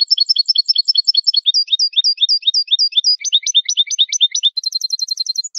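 European goldfinch (jilguero) singing a malagueño-style song: quick phrases of repeated chirping notes, about six a second, that change type every second or so and end in a fast trill over a held high note. The song starts and stops abruptly, with silence either side.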